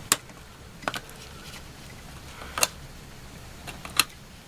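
Four sharp clicks, spread irregularly, as small smartphone parts and a tool are handled while a component is pried loose for removal.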